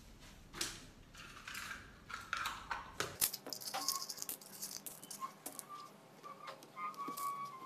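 Pins rattling in a small plastic pin box, with scattered clicks and rustles as pins are handled and pushed into fabric. Faint wavering tones come in during the second half.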